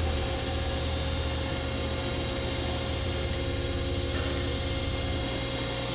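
Harig EZ-Surf II surface grinder running, its spindle turning and an axis jogging: a steady, quiet mechanical hum with a thin whine. The whine and part of the low hum stop about five seconds in.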